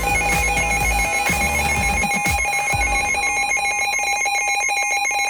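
Electronic emergency alert tone: a high tone warbling rapidly between two pitches over a steady lower tone, loud and continuous. Music underneath fades out about three seconds in.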